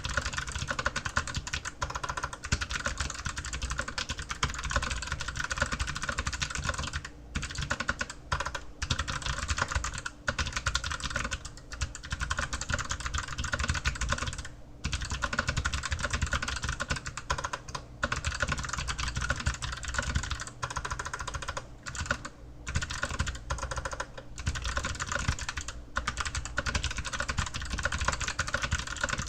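Continuous fast typing on an Archon AK87 mechanical keyboard with clicky Kailh Box White switches: a dense run of keystroke clicks, broken by a few brief pauses.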